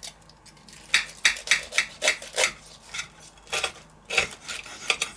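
A knife sawing through the crisp toasted bread of a grilled burger sandwich on a plate. It makes short rasping strokes, about three a second, in two runs with a pause of about a second in the middle.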